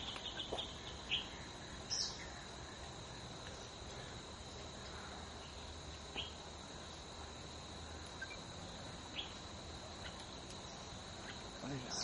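A steady high-pitched insect drone, with a handful of short faint chirps and a sharper click about two seconds in.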